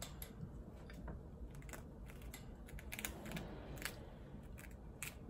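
Chinchilla nibbling and gnawing: a faint run of small, irregular crunchy clicks, several a second.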